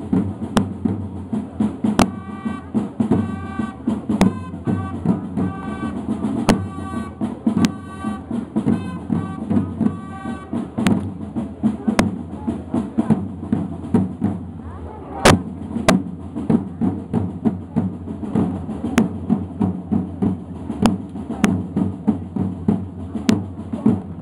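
A corps of parade snare drums playing a fast, steady marching rhythm, with now and then a sharper, louder stroke. For several seconds in the first half a repeated higher-pitched note sounds over the drumming.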